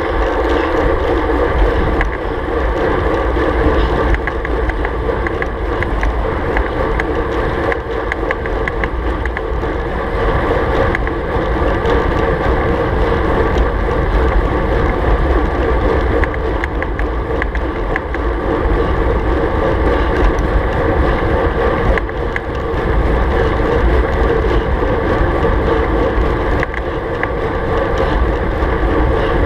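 Steady wind rush buffeting the microphone of a handlebar-mounted camera, with tyre and road noise from a racing bicycle ridden at about 36 km/h.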